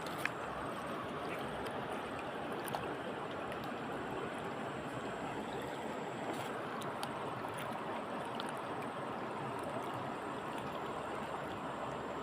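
Steady rush of flowing water, with a few faint clicks, the first just after the start.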